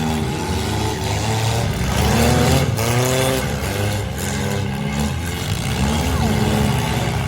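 Engines of four-cylinder demolition derby cars running loud and revving, their pitch rising and falling repeatedly, several engines at once.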